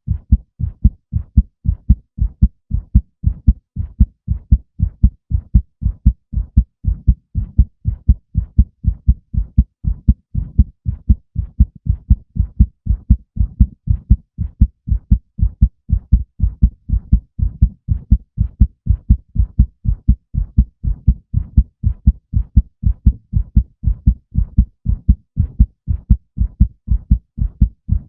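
Human heartbeat: a steady, even rhythm of low, dull lub-dub thumps repeating without a break.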